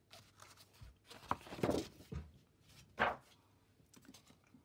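Paper and card being handled: a few short rustles and scrapes of cardstock, the longest about halfway through and a sharp one a little later.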